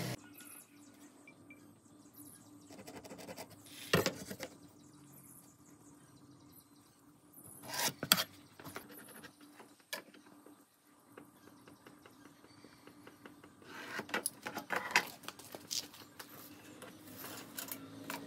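Scattered sharp knocks and clicks over a faint steady hum, with a cluster of them about three quarters of the way through.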